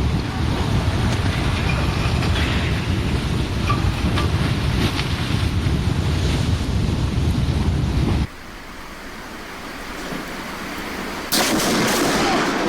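Loud, steady rumbling roar of a mudslide coming down a mountain, cut off suddenly about 8 seconds in; after a quieter stretch of noise, a loud burst of noise starts near the end.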